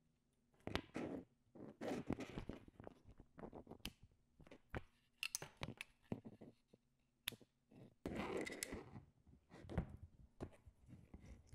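Handling noise from circuit boards and their wiring: irregular clicks and taps of the plastic plug connectors and board edges, with short rustling and scraping bursts as the wires are moved, the longest rustle near the end.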